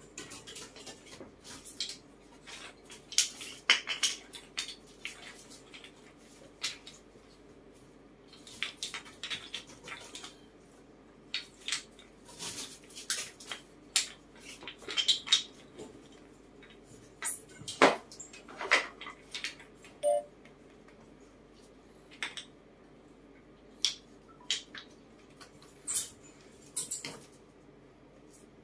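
Irregular light clacks and taps of small wooden tiles and a wooden box as monkeys handle them and knock them together.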